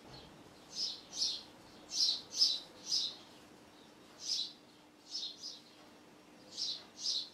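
A fork pricking through the crust of a freshly baked lemon drizzle sponge cake, making holes for the drizzle: about ten short, soft, scratchy pricks, several coming in quick pairs.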